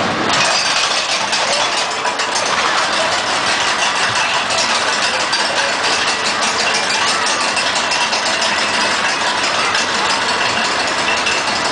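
Caterpillar kiddie roller coaster running: its train of cars clattering steadily along the steel track over a constant mechanical running noise.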